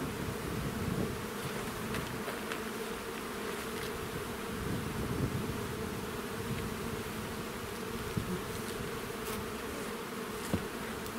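Honeybees buzzing steadily around open hives, a dense hum. A light knock near the end.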